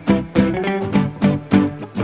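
Background music: plucked string notes in a steady, quick rhythm, a few notes a second.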